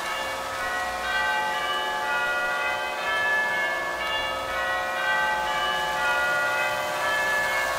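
Bells chiming a tune, one note after another ringing on and overlapping the next.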